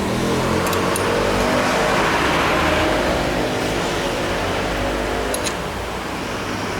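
A motor running steadily, its pitch rising a little and then falling back around the middle.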